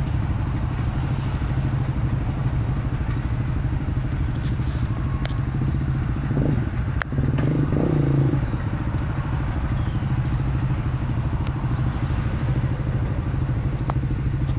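Quad bike engines idling steadily with a low, even hum. The engine note swells briefly a little past halfway, with a sharp click just before it.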